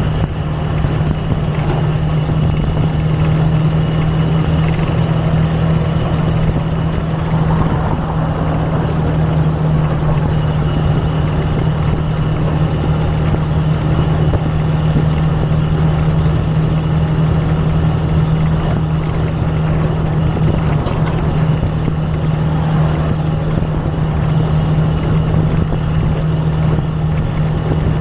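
Small motorcycle's engine running at a steady cruise of 30 to 40 km/h, an even drone.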